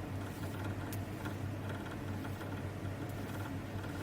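Quiet background between words: a low, steady hum with a faint tick about a second in.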